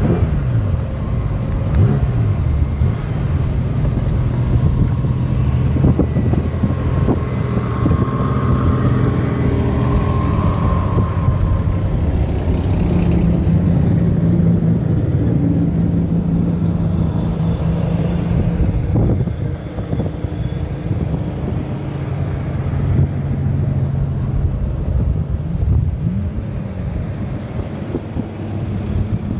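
Several cars' engines idling together, with brief revs a couple of times near the start and again near the end.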